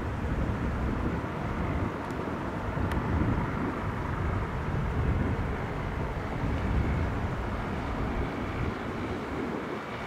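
MBB-Kawasaki BK117 twin-turbine helicopter hover-taxiing low, its rotor and engines making a steady noise, with a faint high turbine whine that grows stronger from about halfway through.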